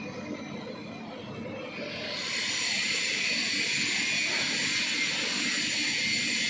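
TIG (argon) welding arc struck about two seconds in, then burning with a steady, loud hiss.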